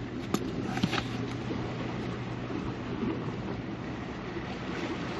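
Steady wind and sea noise with a low steady hum underneath, and a few light clicks in the first second.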